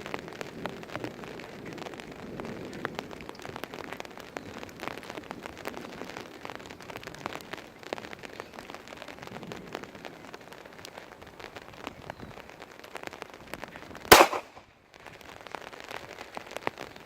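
Rain pattering steadily with many small raindrop ticks, then about fourteen seconds in a single loud shot from a Glock 21 .45 ACP pistol, after which the sound briefly drops away.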